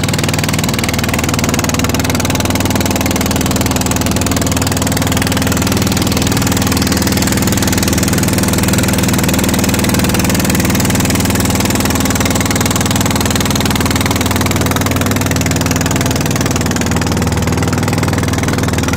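An engine running steadily at an even speed, a loud, unchanging drone.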